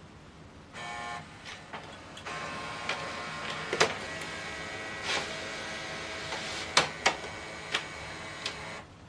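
HP OfficeJet Pro 9120e's automatic document feeder running a two-sided scan. A motor whir with a steady whine starts about a second in, is broken by several sharp clicks, and stops shortly before the end.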